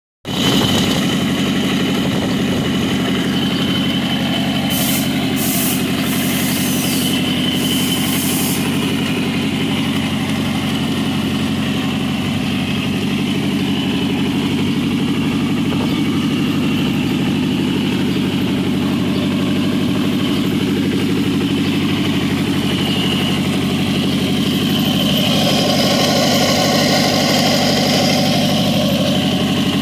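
Volvo Penta AQ140A four-cylinder marine petrol engine idling steadily on a test stand, exhausting through a water-cooled hose, a little louder near the end.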